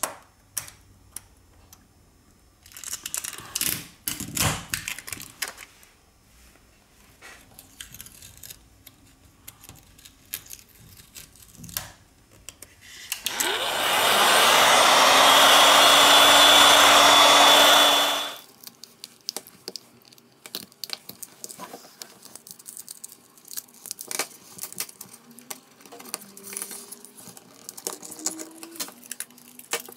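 Hot-air heat gun blowing on a phone's screen edge for about five seconds. Its fan spins up with a rising whine, runs steadily, then cuts off; the heat softens the screen adhesive. Small plastic clicks and taps from prying tools and handling come before and after.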